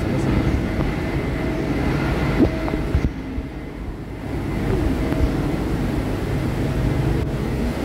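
Steady low drone of a vehicle engine with a faint steady whine above it, dipping briefly about three seconds in, with a few light knocks.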